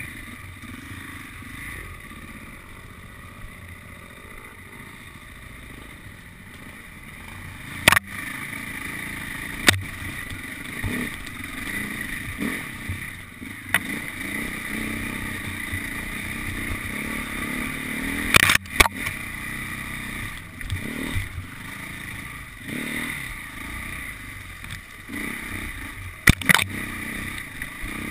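Enduro dirt bike engine running on a rough trail, its revs rising and falling as the rider works the throttle, heard from a camera mounted on the bike. A few sharp knocks cut through as the bike is jolted over bumps.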